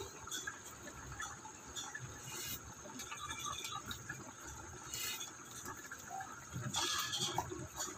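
A stainless steel pot of sotanghon noodle soup boiling on a gas burner, the broth bubbling with irregular small pops and crackles, and a brief louder rush near the end.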